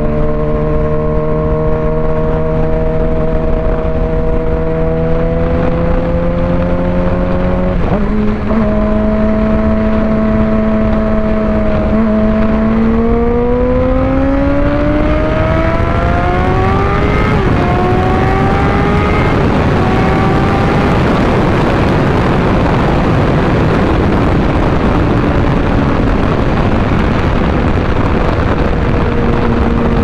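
2006 Suzuki GSX-R 600's inline-four engine under way: steady revs, a sudden jump in pitch about eight seconds in, then the revs climb hard, break and drop once at a gear change, and climb again. In the second half a rush of wind noise covers the engine.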